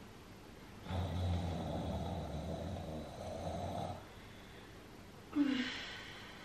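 A woman groaning with effort during side-lying leg raises: one long, low, raspy groan starting about a second in and lasting about three seconds, then a short, louder vocal sound with a falling pitch near the end.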